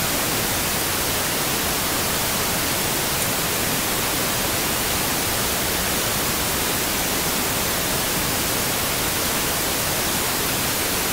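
Steady, even hiss of noise that does not change, with no distinct eating sounds standing out from it.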